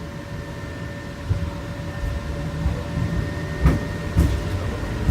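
Hong Kong's Peak Tram, a cable-hauled funicular car, running on its rails: a steady low rumble with a constant high whine and a few sharp clunks.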